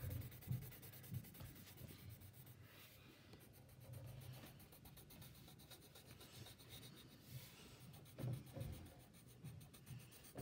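Faint scratching of a coloured pencil shading back and forth on paper.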